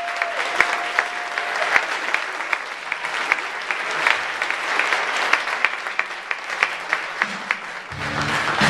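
Audience applause in a hall, a dense crackle of many hands clapping. A steady high tone sounds for about the first two seconds, and low music notes start up near the end.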